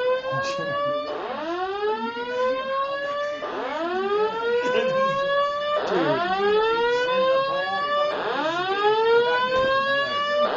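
Building fire alarm voice-evacuation system sounding its whoop tone between recorded evacuation announcements: a loud rising sweep that starts low, climbs fast and levels off, repeated about every two and a half seconds, four or five times.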